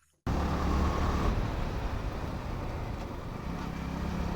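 Yamaha R15 V4's single-cylinder engine running at a steady cruise under wind and road noise. The sound starts after a brief moment of silence.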